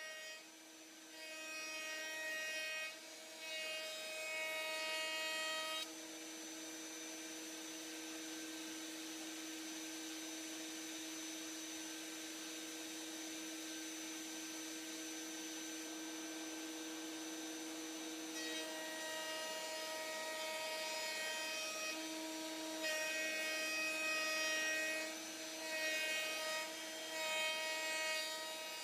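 Electric router in a router table running with a steady whine, cutting a bead along the edges of black walnut drawer fronts. The cutting sound is louder and busier for the first six seconds or so and again over the last ten, with short dips between passes, and the router whines steadily on its own in between.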